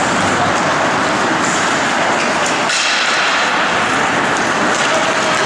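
Steady, loud din of an ice hockey game in an indoor rink, with players skating, and a few sharp clacks about two to three seconds in.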